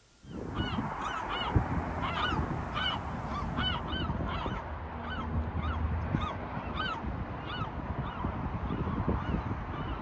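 Birds calling overhead: short, arched calls repeat about twice a second and grow sparser in the second half, over a steady low rumble.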